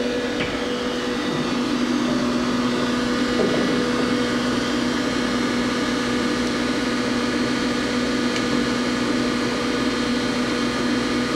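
Doosan Puma 400LB CNC turning center running with a steady hum and two steady tones, low and middle, while the tailstock is worked. A few faint knocks occur.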